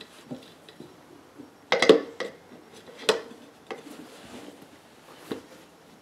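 Locking pliers and a steel tire spoon clanking and clinking against a lawn tractor's metal wheel rim as the pliers are moved along the rim to hold the tire bead. A few separate clanks, the loudest cluster about two seconds in.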